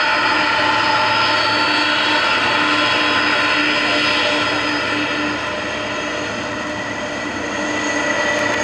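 Boeing 747-400's jet engines running at low taxi power: a steady whine of several held tones over a rushing noise, easing a little in the middle and building again near the end.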